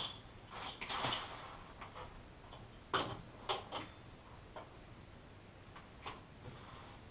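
Irregular clicks and knocks of timber frame struts being handled and fitted together by hand, with the sharpest knocks about one and three seconds in.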